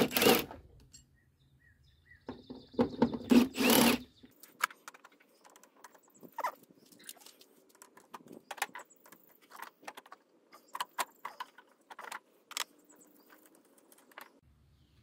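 Hand tools working 10 mm bolts on the AC line brackets in a truck's engine bay: irregular small metallic clicks and clinks, with a few louder knocks in the first four seconds.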